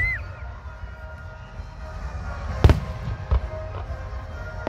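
Aerial fireworks shells bursting overhead: a sharp bang about two and a half seconds in and a smaller one just after, over the low rumble of the display. A short rising-and-falling whistle-like tone sounds right at the start.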